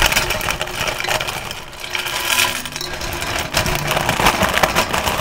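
Crisp fried besan sev being crushed by hand in a stainless steel bowl: a dense, continuous crackling and crunching of many thin strands snapping. The sharp crunch is the sign that the sev is fried properly crisp.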